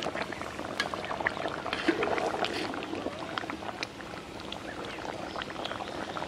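A pot of chicken liver curry boiling and bubbling, with many small crackles, while a metal spatula stirs it and knocks against the metal pot.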